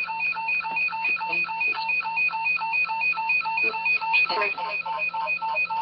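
Echovox ghost-box app on a tablet putting out a fast, steady stream of chopped voice fragments and static, with a two-tone beep pulsing about five times a second.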